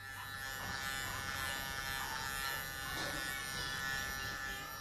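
KM-719 electric hair clipper running with a steady buzz as it cuts hair on the head.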